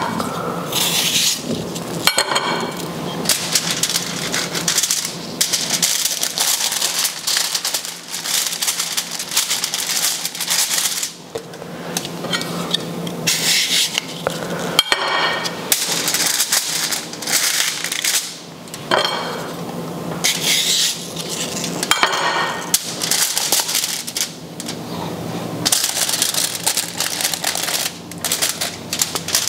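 Aluminium foil crinkling and rustling in irregular bursts as it is handled and folded up around a slab of meat, with a few sharp clicks of kitchen handling.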